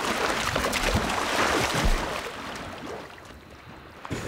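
Water splashing and churning as a hippopotamus moves through it: a loud crackling rush for about two and a half seconds, then a softer wash.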